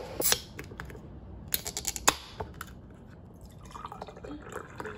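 Glass tumblers set down on a table with a click, then a soda can cracked open with a short fizz about a second and a half in, followed by carbonated soda poured from the can into a glass tumbler, rising in pitch as it fills.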